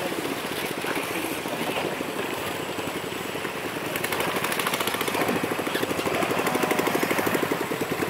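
Small boat's engine running steadily, a rapid even train of pulses that gets a little louder about halfway through.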